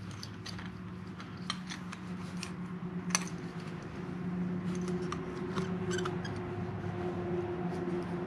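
Light, irregular clicks and ticks of small parts being handled as a motorcycle turn signal housing is reassembled, over a steady low hum.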